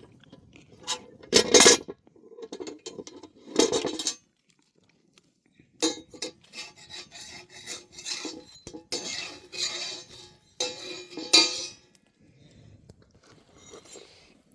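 Metal pots, dishes and utensils being handled: irregular clattering knocks and scraping with a slight metallic ring, a short lull about four seconds in, then a longer run of clinks and scrapes.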